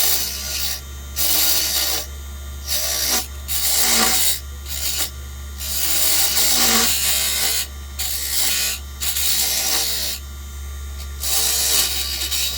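Small wood lathe running with a steady motor hum while a hand-held tool scrapes and cuts the spinning wooden lure blank in repeated strokes of about a second, with short pauses between them.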